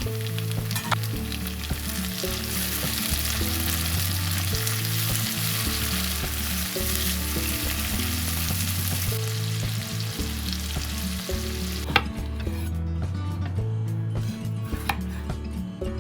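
Food sizzling and frying in a hot pan while being stirred, a dense steady hiss that cuts off suddenly with a sharp click about twelve seconds in. A few light knocks follow.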